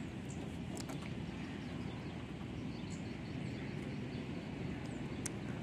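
Steady low outdoor background noise over open water, with a few faint, short, high chirps scattered through it.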